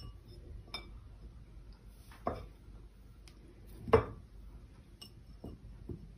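A glass dessert cup knocked and clinked lightly as it is handled on the countertop while torn pieces of sponge cake are dropped into it. There are about five separate short taps; the loudest comes about four seconds in.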